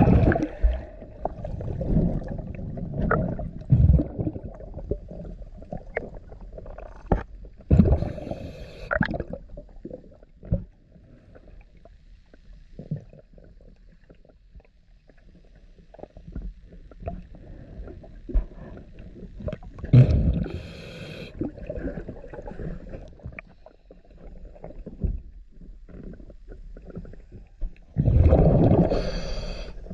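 Underwater sound of a diver's breathing regulator: exhaled bubbles rush out in loud gurgling bursts three times, with low rumbling and scattered knocks between.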